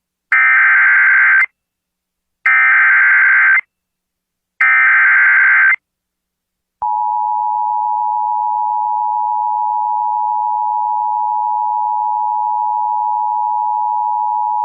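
Emergency Alert System header: three one-second bursts of SAME digital data tones, each a second apart. About seven seconds in, the steady two-tone EAS attention signal begins, announcing an incoming emergency alert.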